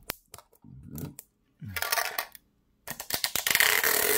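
A small metal card tin being handled and opened: a few sharp metallic clicks and rattles, then from about three seconds in a louder, continuous rustling scrape dotted with clicks.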